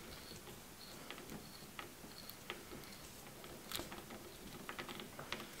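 Faint, scattered light clicks and ticks from a hand tap being turned to cut threads in a drilled aluminum block.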